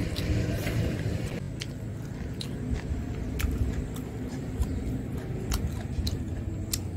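Close chewing of a mouthful of rice and meat curry, with irregular sharp wet mouth clicks and smacks about every half second, over a steady low rumble.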